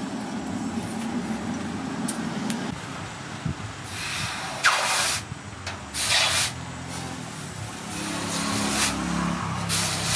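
Coal forge under forced air, a steady low rumble, then the red-hot steel axe head hissing in several short bursts as it is dipped into the water trough to quench and harden it.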